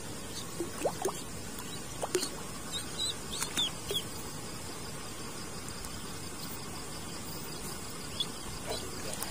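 A duckling peeping in short, high, falling calls, several in the first four seconds and once more near the end, with a few faint splashes as it paddles at the water's surface. Under it, a steady chorus of crickets.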